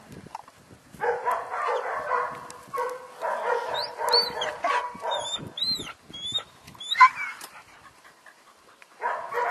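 A dog barking and yapping in quick runs, with one sharp, loud bark about seven seconds in. Small birds chirp in between.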